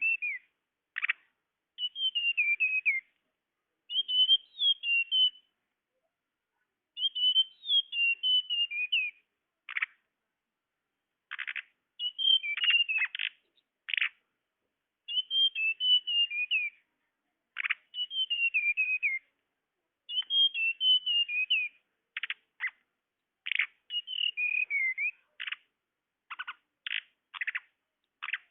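Flowerpecker (tledekan) call played as a bird-trapping lure: high twittering phrases about a second long that slide downward, alternating with short sharp ticking notes, repeated with brief pauses between.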